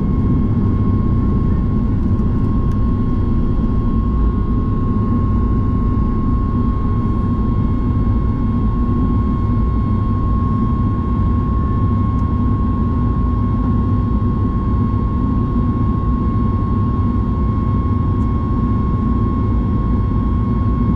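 Steady jet engine noise inside the cabin of a Boeing 737-9 MAX with CFM LEAP-1B engines: a deep, even rumble with a thin, steady whine held on top.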